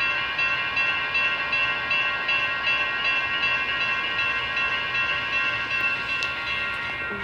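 Several electronic railroad crossing bells (NEG and WCH types) ringing together in quick, even strokes: the crossing is activated with its gates down, warning of an approaching train.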